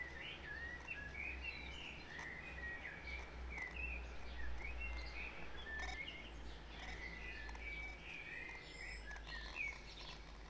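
Birds chirping in the background: a busy run of short, high, twittering calls, over a low steady rumble.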